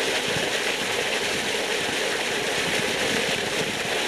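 Water gushing and churning, a steady, even rush.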